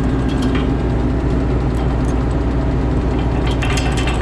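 Heavy farm machinery engine idling steadily with a deep hum. A quick run of sharp metallic clicks comes near the end.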